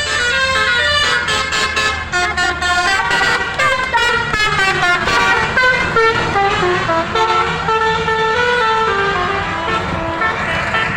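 Indonesian bus telolet horn of the Basuri multi-trumpet type playing a melody of many short notes stepping up and down in pitch, with the bus's engine running low underneath.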